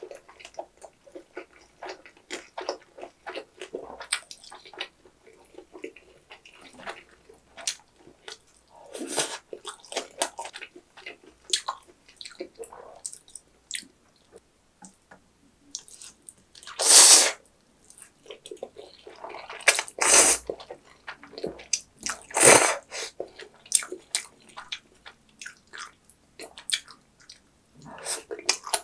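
Close-miked wet chewing of a full mouthful, with many small smacking clicks, as a person eats. Three loud slurps come in the second half, the first lasting about a second. Near the end jjajang ramen noodles are slurped in.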